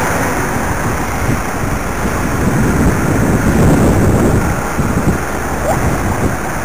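Wind buffeting the camera microphone over low city street traffic rumble, swelling for a couple of seconds in the middle.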